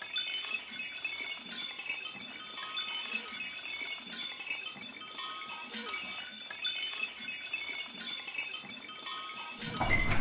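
Small metal bells jingling unevenly, a scatter of high ringing tones overlapping one another.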